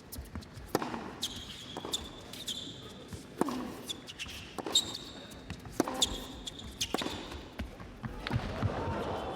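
Tennis ball being struck and bouncing during play on a hard court, sharp knocks about a second apart, with shoes squeaking on the court surface.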